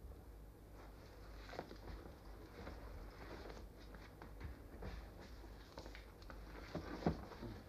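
Faint, irregular rustling and soft clicks of hands pulling a red fox's skin down off the carcass, over a steady low hum.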